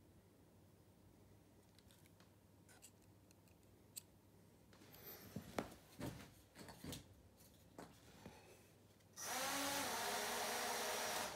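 Small quadcopter handled and set down with scattered clicks and knocks, then near the end its brushless motors start and the propellers spin with a steady whir.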